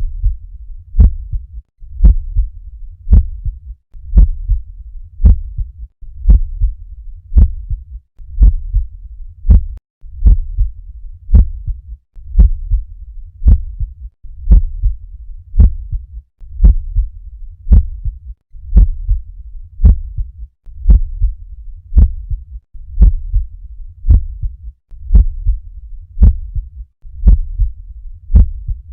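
Heart sounds heard through a stethoscope: a regular beat about once a second, each with a sharp click, over a low rumble between beats.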